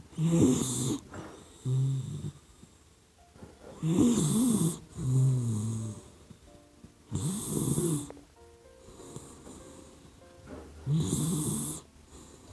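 Sleeping puppy dog snoring, four raspy snoring breaths about every three and a half seconds, some followed by a shorter second breath.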